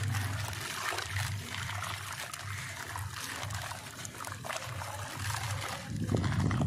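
A crumbling wet sand-cement chunk showering grit into a bowl of water, a steady gritty trickle and splash. It gets louder about six seconds in as a bigger mass drops in.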